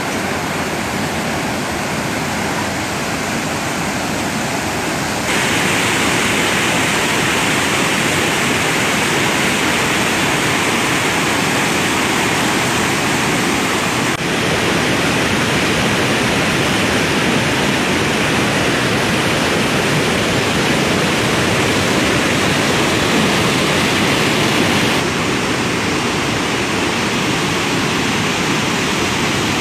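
Waterfall, a loud, steady rush of falling water. The level steps up about five seconds in and drops a little near the end, as the view changes.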